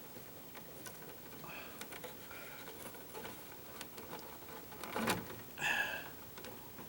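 Small scattered clicks, taps and rustles of solid electrical wires being bent and straightened by hand in a junction box, with a couple of louder handling knocks about five seconds in.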